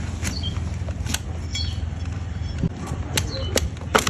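Sharp clicks and snips of hoof-trimming tools cutting into a donkey's hoof, a few spread out and then several close together near the end, over a steady low hum.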